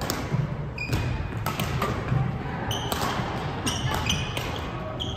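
Badminton rally: rackets striking the shuttlecock in a quick exchange of several hits, with short squeaks of players' shoes on the court floor.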